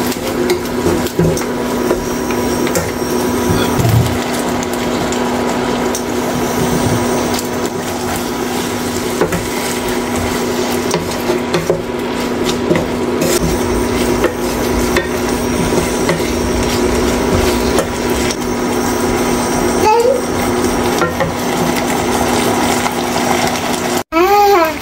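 Pork being stir-fried in a frying pan, with a utensil repeatedly stirring, scraping and clinking against the pan, over a steady hum.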